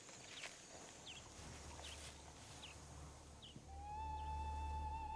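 Faint savanna ambience with a short high chirp repeating about every two-thirds of a second. About three and a half seconds in, background music enters: a low drone under a sustained tone that slides up and holds.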